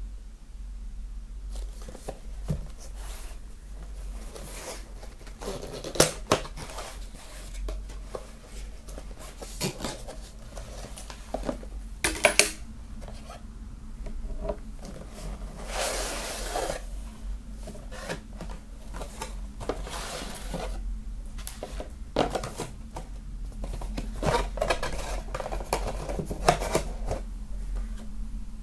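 Cardboard box set and its contents being unpacked by hand: sharp taps and knocks as card and items meet a wooden tabletop, with rustling and sliding of card, paper and fabric. A steady low hum runs underneath.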